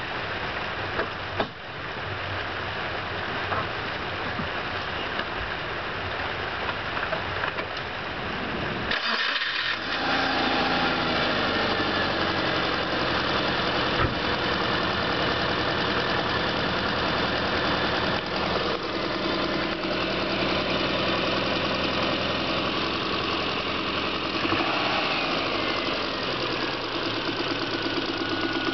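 Subaru EJ22 2.2-litre SOHC flat-four engine running with a rattle that the owner takes for piston slap. The sound changes abruptly about a third of the way in and settles into steadier running.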